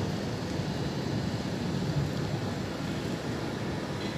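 Rain and wind in a thunderstorm: a steady rushing noise, heaviest low down.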